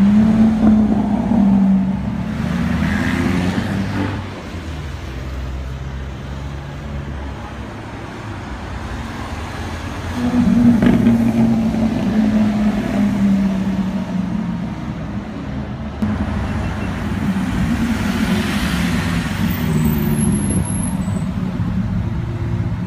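Supercar engines running and revving as the cars drive past on a city street, starting with a Lamborghini Aventador's V12. The engine note rises and falls with each pass. It is loudest at the start, again from about ten seconds in, and through the last several seconds, with a quieter stretch of engine and road noise in between.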